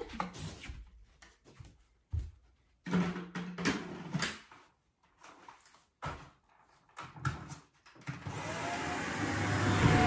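Scattered knocks and rustles of handling, then about eight seconds in a Shark anti-hair-wrap vacuum cleaner is switched on, its motor spinning up and running steadily louder as it is pushed over carpet.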